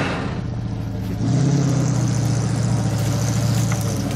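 Off-road 4x4's engine running under load, revving up about a second in and holding at the higher speed.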